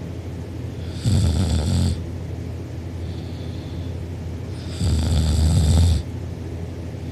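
A sleeping person snoring: two loud snores about four seconds apart, each lasting about a second, with a fainter one between them.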